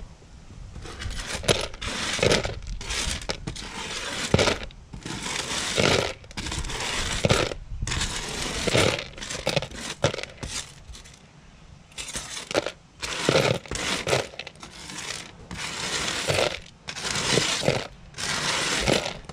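Small salvaged electronic parts and scrap being handled on a workbench: repeated scraping, rustling and clinking in short bursts of a second or so, with brief pauses between.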